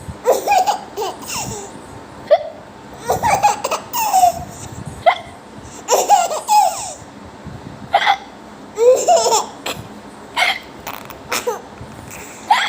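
Baby laughing in fits and giggles in reaction to a person's hiccups: a short sharp hiccup comes every two to three seconds, about six in all, and the laughter follows each one.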